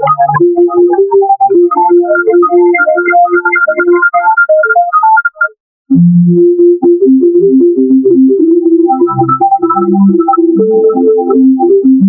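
Synthesizer keyboard music: quick runs of short notes, which break off for a moment about halfway and then start again as a new tune with a lower bass line.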